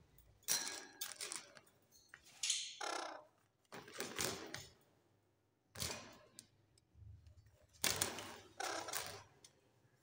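A parrot's beak pecking and gnawing at a phone and its cover right at the microphone: an irregular run of sharp taps, clicks and scrapes, with a short falling squeak about three seconds in.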